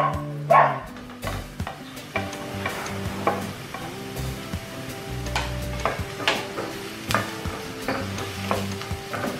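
Chopped onion and garlic sizzling in oil in a nonstick pan, with a wooden spatula scraping garlic off a plate and stirring, knocking against the pan now and then. Quiet background music with held notes underneath.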